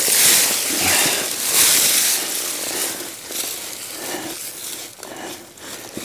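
Crunching and rustling of dry leaf mulch and soil being dug through in a garden bed, loudest in the first couple of seconds and then quieter.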